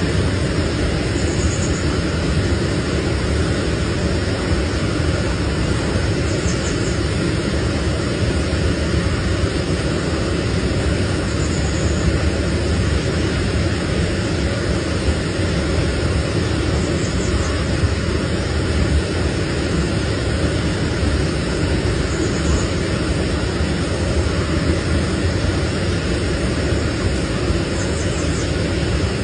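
Steady, even rushing noise, strongest in the low range, unchanging throughout, with a faint brief high chirp about every five seconds.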